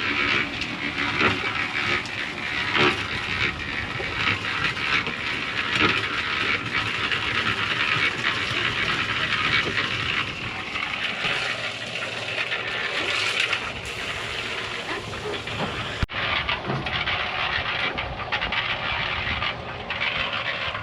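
Concrete being mixed: a steady, gritty scraping hiss of wet cement and gravel being worked, with a brief break about sixteen seconds in.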